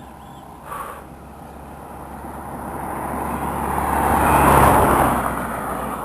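A motor vehicle passing by on the road: the noise of its engine and tyres builds, is loudest about four and a half seconds in, then fades away.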